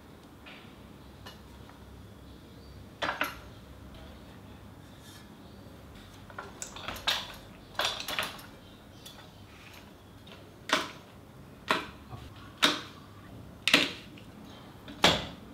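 Metal frame of a folding air walker exercise machine clanking as its legs are pulled apart and handled: a series of sharp metallic knocks and clicks, one early, a cluster in the middle, then about one a second near the end.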